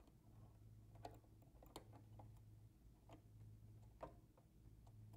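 A few faint small clicks of metal parts being handled while a factory free-motion hopping foot is fitted to a Brother sewing machine, over a low steady hum.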